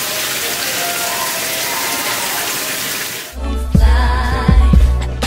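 Shower spray running as a steady hiss, with music playing faintly beneath it. About three seconds in, the water sound stops abruptly and loud hip-hop music with a heavy bass beat takes over.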